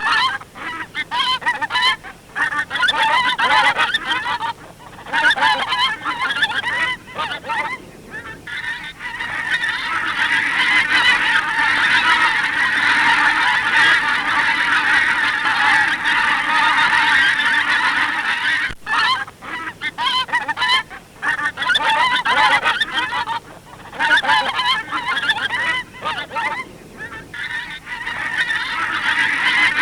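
Geese honking, many calls overlapping in bursts with short gaps. The calls run almost without a break through the middle stretch.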